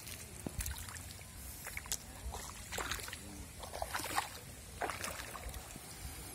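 Water splashing and sloshing as people wade and work a cast net in shallow river water, with irregular splashes bunched in the middle, over a steady low rumble.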